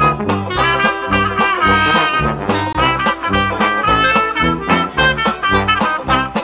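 Background music: upbeat jazzy brass music with horns over a steady bass beat.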